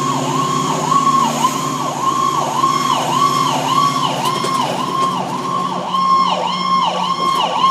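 Fire engine's electronic siren in a fast yelp, its pitch swinging down and back up about twice a second. It is heard from inside the cab over the truck's engine drone, and it cuts off near the end.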